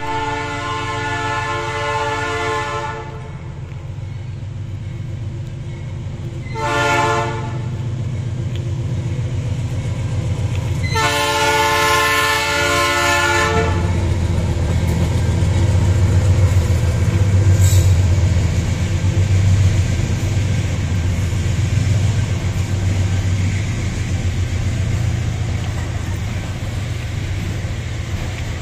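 Diesel freight locomotive sounding its multi-tone horn three times as a level-crossing warning: a long blast, a short one, then a long one. Its engine then rumbles past, loudest a few seconds after the last blast, followed by the steady rolling of loaded cellulose wagons.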